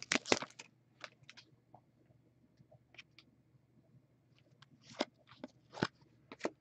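Foil trading-card pack crinkling as it is torn open, then faint rustles and clicks of the cards being handled, with a couple of sharper ticks near the end.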